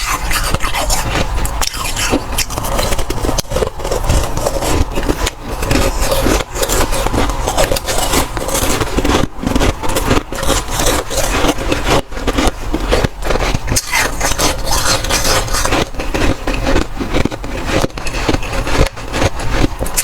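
Close-miked crunching and chewing of dry, powdery freezer frost, a dense, unbroken run of crisp crackling bites.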